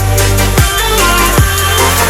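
Background music with a heavy bass beat: deep bass hits that fall sharply in pitch, a little under a second apart, over held notes.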